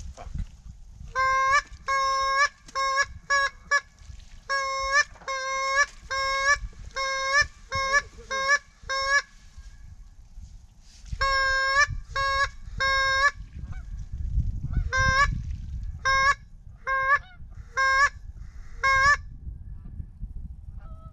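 Goose honking: runs of short, flat-pitched honks, four groups of several notes each with pauses between, over a low rumble of wind on the microphone.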